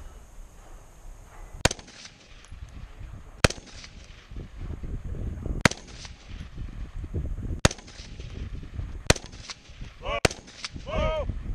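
Six single rifle shots from an AR-style rifle with a red-dot sight, fired slowly at about one every two seconds. Each is a sharp crack with a short echo.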